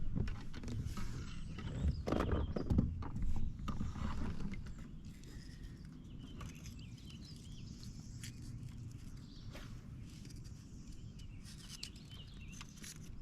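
Knocks and bumps against a kayak hull, with handling rumble, while a bass is landed and handled. The knocking is heaviest in the first four seconds or so, then it settles to occasional light clicks.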